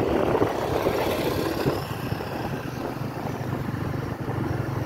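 Motorbike riding along a road: the engine running steadily under a rush of wind on the microphone, the wind stronger in the first second or two.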